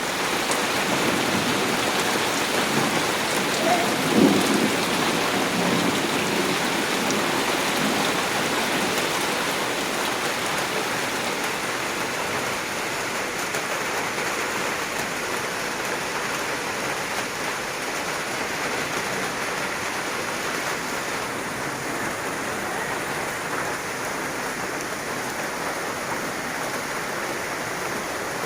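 Heavy rain falling steadily on the ground and surroundings, easing slightly over the second half. A short low rumble of thunder comes about four seconds in.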